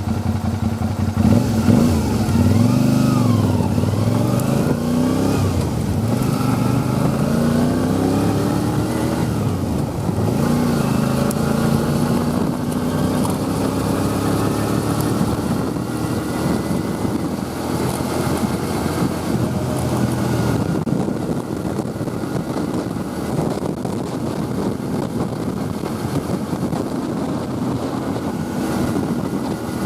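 Motorcycle engine running under way, its pitch rising and falling with throttle and gear changes through the first ten seconds or so, then holding steadier under an even rushing noise.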